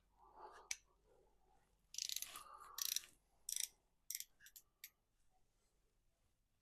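Hand tools clicking and rattling in several short bursts from about two to five seconds in, the loudest near the start of that stretch.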